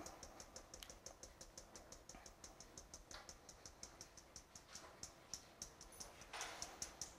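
Faint, even light ticks, about six a second, from a spatula tapping against a mesh sieve to sift flour through into a glass bowl. A short soft swish near the end.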